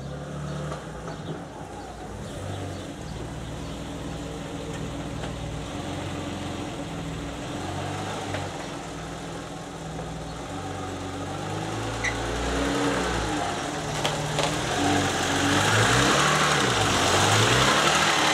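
BMW E34 5 Series car engine running at low speed as the car creeps closer and pulls up overhead, getting louder through the second half, with a few brief rises and falls in engine pitch near the end.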